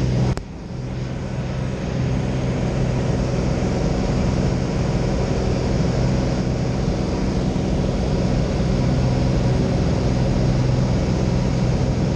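A small high-wing propeller plane's engine at takeoff power, heard from inside the cabin as a steady, loud drone while the plane rolls, lifts off and climbs. A sharp click with a short drop in loudness comes about half a second in.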